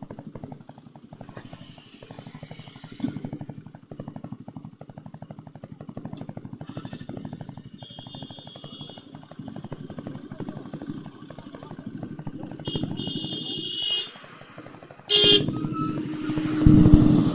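Motorcycle engine running at a low, steady idle with even, rapid firing pulses. A high horn-like tone sounds twice in the middle, and about fifteen seconds in the sound suddenly gets louder as the engine picks up.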